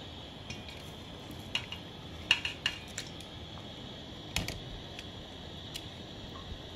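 Metal tongs clinking against a stainless steel pot several times, in short sharp knocks, over a steady hiss.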